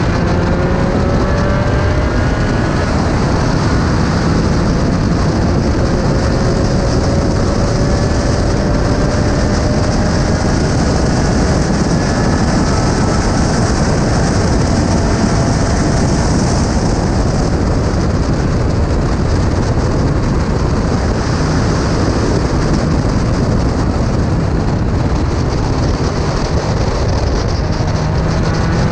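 SRF3 spec racer's engine running at speed on track, its note climbing slowly under acceleration, heard under a heavy rush of wind noise on the onboard microphone.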